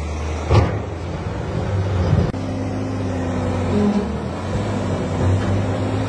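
Diesel engine of a wheel loader running steadily with a low hum, with a sharp thump about half a second in and a smaller one near two seconds.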